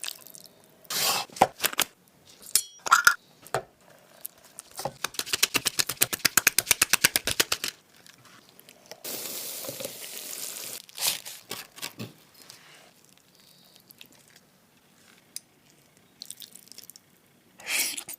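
Kitchen food-preparation sounds: scattered clinks and knocks of utensils and dishes, a run of rapid, even taps, about nine a second for some three seconds, and a short stretch of hiss about nine seconds in.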